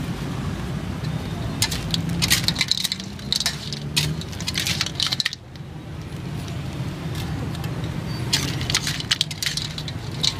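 Metal spatula scraping and clinking against a steel wok as stir-fried cockles are scooped out, their shells clattering, in two bursts with a pause between. A steady low rumble runs underneath.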